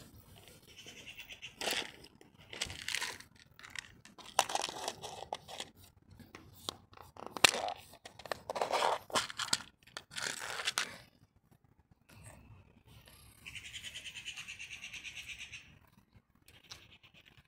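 Rustling, crinkling and tearing of bags and food packaging in a string of irregular bursts, then a cat eating from a food tub, with quick, even chewing sounds about five a second for a few seconds near the end.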